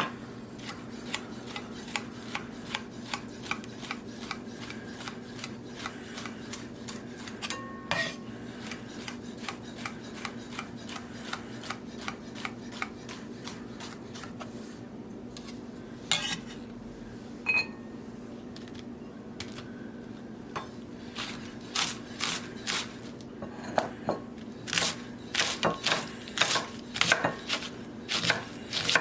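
Kitchen knife chopping vegetables on a cutting board: a run of sharp knocks, sparser through the middle and quicker and louder toward the end, over a steady low hum.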